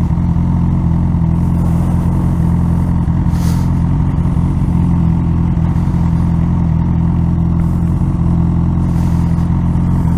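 1000cc sport motorcycle engine running steadily, its note holding at one even pitch.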